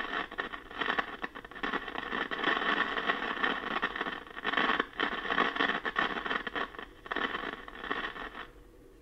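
Loud crackling, rushing racket from a vintage tube radio's loudspeaker (RCA 8-X-541). It starts suddenly, drops out briefly twice, and cuts off about a second before the end. It is the intermittent crackling fault being traced through the radio's converter and IF stages, which the restorer suspects lies in IF transformer T1.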